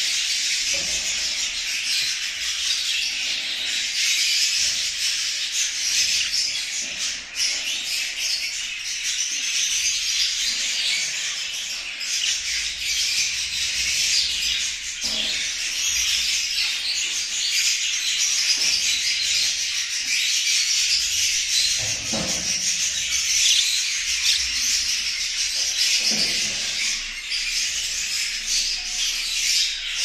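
Budgerigar chatter: a continuous, busy high warbling of chirps and twitters with no breaks.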